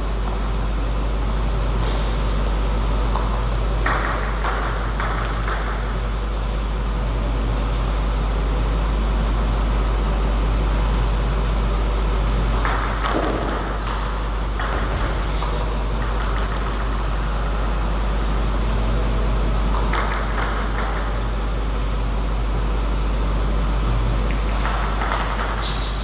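Table tennis ball clicking off rackets and the table in short bursts of rally play, over a steady low hum. A brief high squeak comes about two-thirds of the way through.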